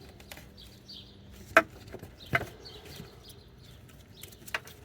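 A few sharp plastic clicks and knocks from handling the tail-light bulb socket and its wiring connector, the loudest about one and a half seconds in, with two more near the middle and near the end. Faint bird chirps sound in the background.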